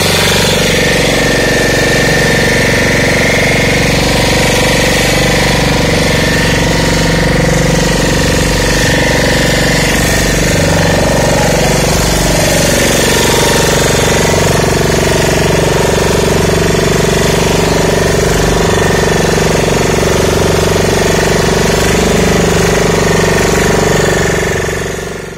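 Motor of a fibre fishing boat running steadily under way, a loud continuous chugging drone.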